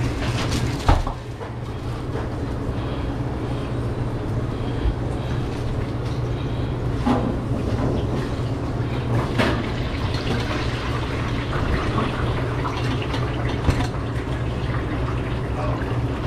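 A steady low mechanical hum, broken by a few brief knocks and clatters of kitchen work.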